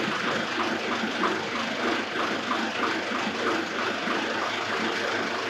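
Ford 1920 compact tractor's diesel engine running steadily at idle.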